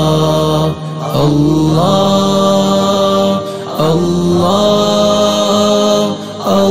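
Arabic devotional nasheed: a voice sings long, drawn-out notes in phrases of a few seconds, with short breaks between them, and the pitch steps up at the start of each new phrase.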